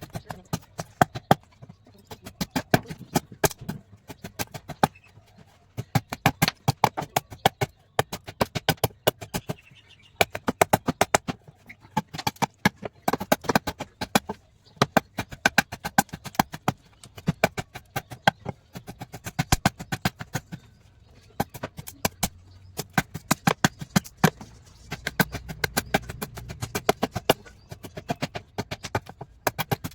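Quick runs of sharp wooden knocks, several a second, with short pauses between the runs.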